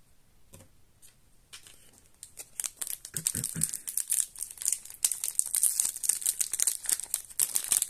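Foil wrapper of a Magic: The Gathering set booster pack crinkling and crackling as it is handled and torn open, starting about two seconds in and going on densely from there, with a couple of soft thuds of handling along the way.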